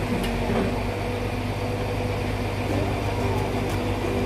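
Diesel engine of a crane lorry running steadily, with a continuous low hum.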